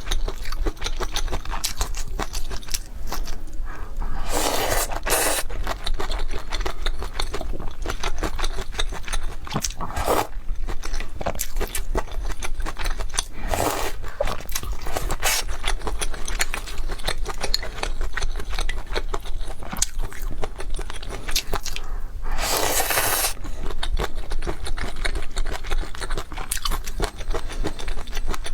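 Close-miked eating of luosifen rice noodles with fried tofu skin: continuous wet chewing and crunching, with four louder bursts about 4, 10, 14 and 22 seconds in.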